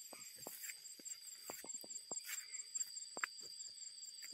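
Irregular soft footsteps and rustling of grass along a path, over a steady high-pitched insect chorus with a faster pulsing trill above it.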